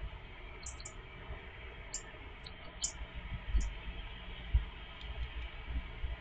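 Short, sharp tick calls of a European robin, about six of them at irregular intervals, over a low steady rumble, with two dull low thumps near the middle.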